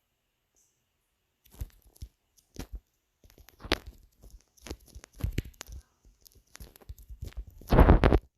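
Irregular crackling and scraping handling noises that start about a second and a half in, grow busier, and end in a loud crackling burst near the end.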